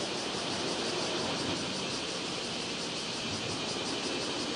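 Distant approach of a freight train hauled by a JR Freight EF210 electric locomotive: a steady hiss over a low rumble.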